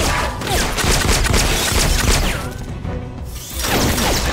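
Gunshots and bullet impacts in a shootout, over a dramatic music score. About two and a half seconds in, the sound goes muffled for about a second, then the shots and music return.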